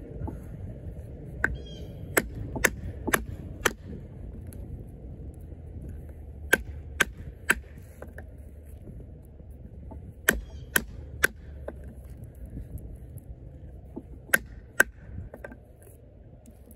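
Sharp wooden knocks as a 420HC fixed-blade knife is hammered down through a piece of wood. The blows come in short runs: five about half a second apart, then three, three and two, with pauses between.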